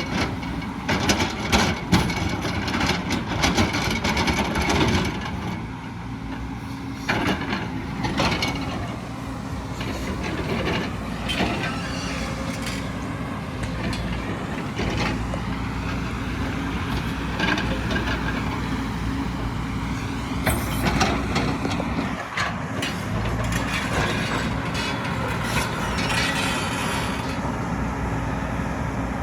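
Hydraulic excavator's diesel engine running steadily, with knocks and clatter through the first eight seconds or so as it works.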